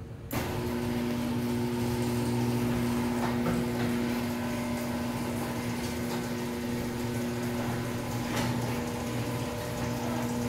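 Overhead Door model 100A garage door opener, an old AC-motor unit, starting about a quarter second in and running steadily with a low hum and a steady whine, with a few light clicks along the way. It has just been adjusted and serviced and is running fairly quietly for an older opener.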